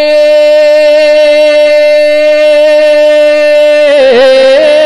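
A male singer holds one long, steady note of a sung Urdu manqabat, then breaks into wavering, gliding ornaments near the end.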